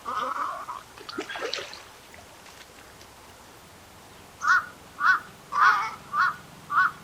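Little egret giving harsh, throaty croaking calls: a long rasping call at the start and ragged calls about a second in, then five short croaks about half a second apart.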